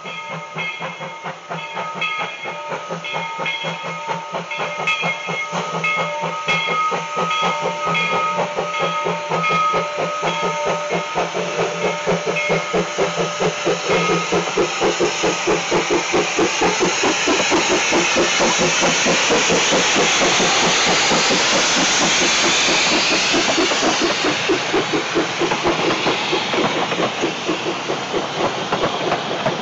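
Two-foot-gauge steam locomotive B&SR #7, a Forney tank engine, working toward and past with rapid exhaust chuffs; a steady high tone sounds over the first half. A loud hiss of steam builds as the engine draws level, about two-thirds in, then the train's cars roll past with clickety-clack.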